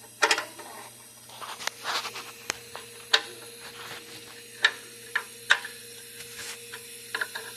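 Irregular metal clicks and knocks of hand tools working the mounting bolts while an electric motor is tightened down on an air compressor, over a faint steady hum.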